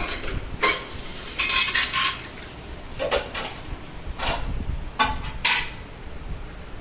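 Dishes and utensils clattering and clinking in a series of short bursts, the busiest stretch about one and a half to two seconds in.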